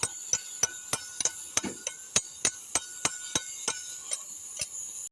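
Hammer striking steel on a bulldozer's track undercarriage: sharp blows about three a second, each with a short metallic ring.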